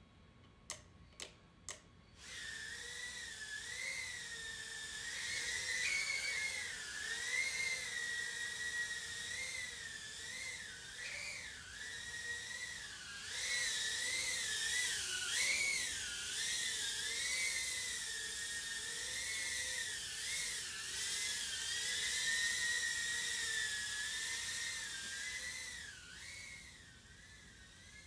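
Tiny whoop FPV quad's small brushless motors (HappyModel EX1102) spinning 40 mm four-blade props, making a high-pitched whine whose pitch wavers up and down constantly with the throttle in flight. A few short clicks come before the whine starts about two seconds in, and the whine falls in level near the end.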